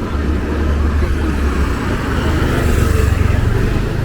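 Street traffic: a motor vehicle's low rumble swells as it passes close, loudest about three seconds in.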